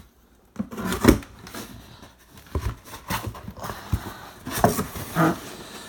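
Rustling, scraping and several knocks of a cardboard shipping box being opened and its contents handled.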